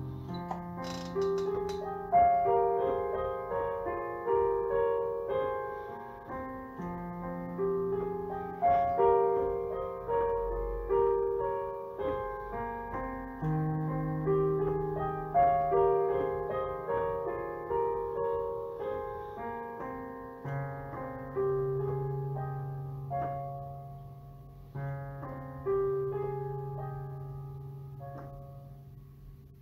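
Solo piano playing a lyrical melody over long-held bass notes, the struck notes ringing and dying away, growing softer near the end.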